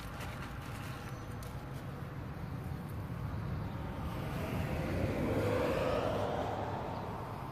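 A car passing by on the road, building from about halfway through to its loudest near the end and then easing off, its tyre and engine noise sweeping down in pitch. A low wind rumble on the microphone runs underneath.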